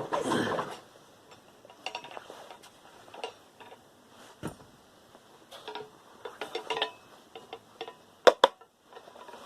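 Small metal parts and tools clicking and clinking as a computer motherboard is dismantled, with a pair of sharper clicks near the end.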